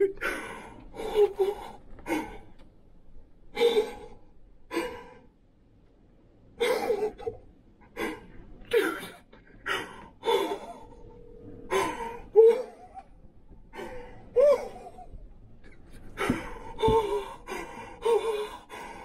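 A man breathing hard: a run of sharp gasps and breathy voiced exhales, one every half second to a second, with a short lull in the middle. A single soft knock comes near the end.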